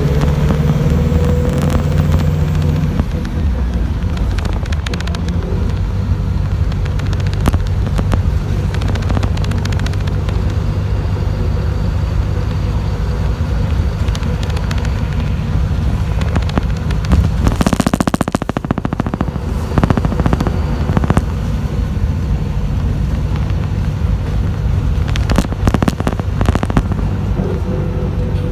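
Interior sound of a city bus driving: a steady low engine and road rumble with frequent rattles and clicks from the body. A faint whine rises in pitch near the start, and a brief louder rush of noise comes about two-thirds of the way through.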